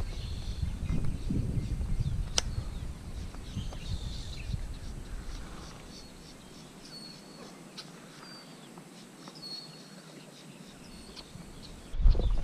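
Birds calling in short, high chirps repeated several times in the second half, over faint low rumbling noise that fades out about halfway through; a single sharp click about two seconds in.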